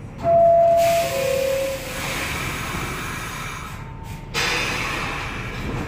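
Two-note descending door-closing chime of an R46 subway car, followed by a steady hiss as the doors shut.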